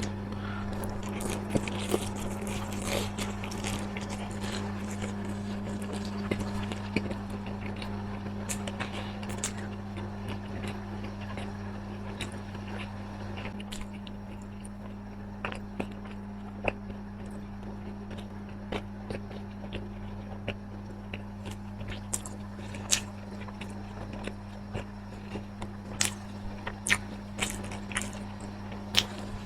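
A person eating close to the microphone: biting and chewing, with many short sharp clicks and crunches, busiest at the start and again near the end, over a steady low hum.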